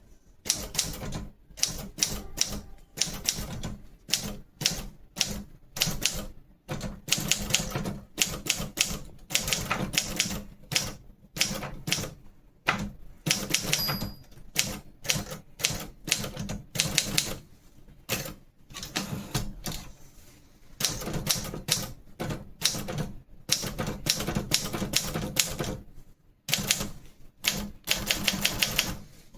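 Adler Gabriele 35 portable manual typewriter being typed on: fast runs of key and typebar strikes broken by short pauses, with a brief ring about halfway through.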